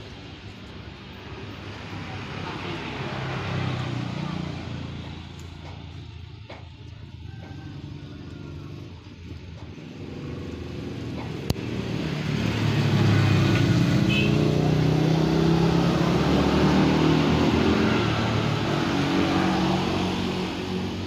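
Motor vehicle engine noise that swells and fades: a first rise early on, then a louder stretch through the second half, fading near the end. There is a single sharp click a little past halfway.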